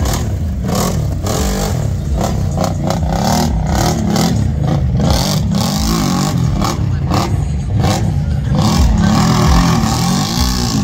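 Big-tire ATV engine revving hard, climbing and falling in pitch again and again as the throttle is worked over dirt mounds.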